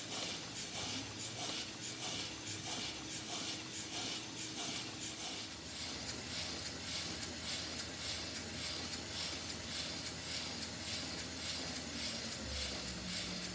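Model twin-cylinder horizontal mill engine running steadily, its exhaust puffing in a quick, even rhythm over a constant hiss.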